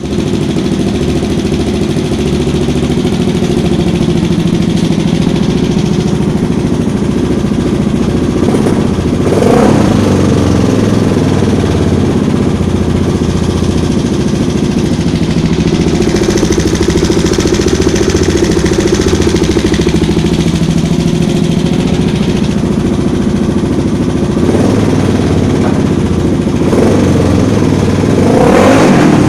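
Kawasaki KLX650C single-cylinder four-stroke engine idling with a clatter, briefly revved twice, about a third of the way in and again near the end. The rattle is taken to come from the timing chain.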